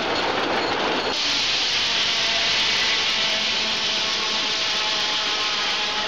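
Old circular sawmill running, its large circular head saw cutting into wood about a second in: a loud, steady high hiss with a faint whine over the mill's machinery.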